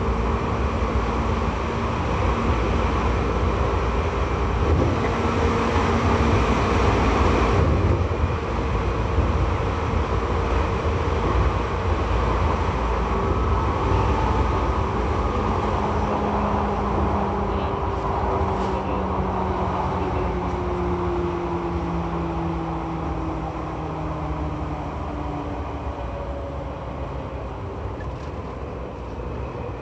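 Seibu 2000 series electric train running, heard from inside the car above its line breaker: rumbling wheel and rail noise with steady motor and gear tones. From about twelve seconds in the tones slide down in pitch and the noise eases off as the train slows.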